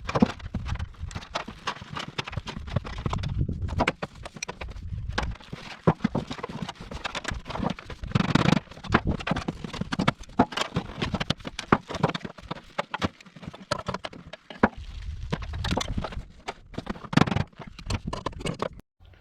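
Irregular knocks and clatter, several a second, with a few short pauses, over a low rumble.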